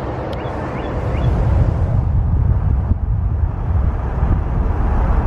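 Steady road and wind noise inside a moving car at highway speed, a dense low rumble that comes in about a second in. Before it, a brief outdoor roadside hiss of passing traffic with a few faint chirps.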